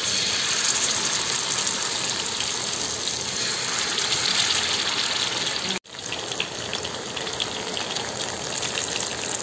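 Marinated fish steaks sizzling as they shallow-fry in hot oil on a dosa griddle: a steady frying hiss with fine crackles. It breaks off for an instant about six seconds in, then goes on.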